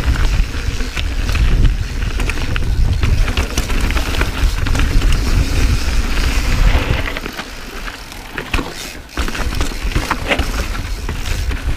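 Intense Carbine 29er mountain bike ridden over rocky dirt singletrack: tyres crunching over rock and gravel and the bike rattling on bumps, with heavy wind rumble on the camera's microphone. The noise eases for a couple of seconds about seven seconds in, then picks up again.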